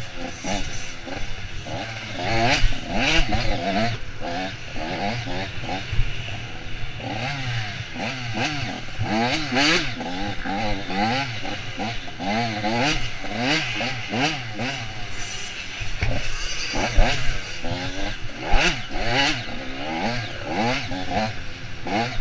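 Off-road dirt bike engine revving up and down over and over as it is ridden hard over rough ground, with frequent knocks and rattles mixed in.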